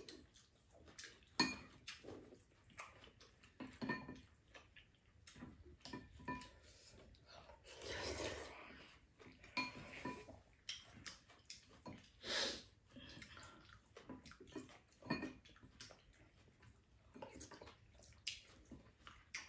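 Spoons and chopsticks clinking and tapping against ceramic bowls during a meal, in scattered short knocks, some with a brief ring. There is a longer, noisier stretch about eight seconds in, and one louder knock around twelve seconds.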